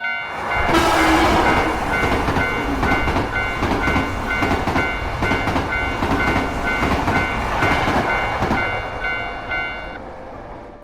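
Japanese railroad crossing alarm ringing in a steady repeating ding while a train passes over the crossing, its wheels clattering over the rail joints. Near the end the alarm stops and the train noise fades away.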